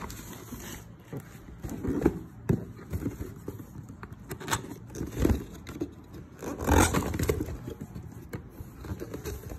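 Cardboard being handled: scraping and rustling as a boxed kettle is pulled out of a cardboard shipping carton and set down, with scattered knocks and a longer, louder scrape about seven seconds in.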